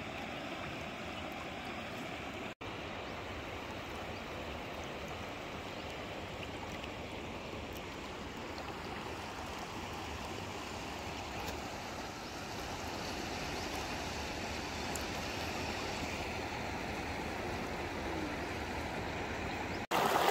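Shallow river water running over stones: a steady, even rushing. It breaks off for a moment twice, about two and a half seconds in and near the end.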